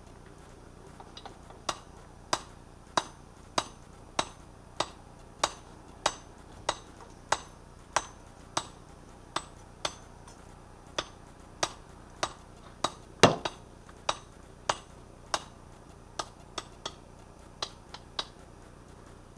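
Hand hammer striking a hot Damascus (layered steel) billet on an anvil, a steady series of ringing blows a little more than half a second apart, one heavier blow midway, then fewer and more irregular strikes near the end. The billet is being forge-welded and drawn out.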